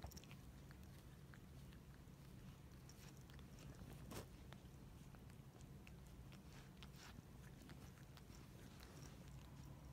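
Faint soft clicks of a cat licking another cat's fur while grooming, over a low steady hum, with one louder click about four seconds in.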